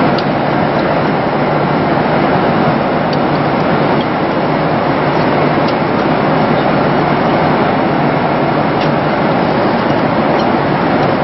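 Steady roar of a Boeing 767's passenger cabin in flight: engine and airflow noise, even and unbroken, with a few faint clicks as the menu card is handled.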